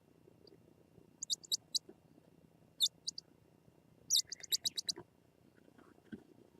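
Japanese scops owl nestlings giving short, high-pitched squeaky chirps in quick clusters: three, then three more, then a rapid run of about seven.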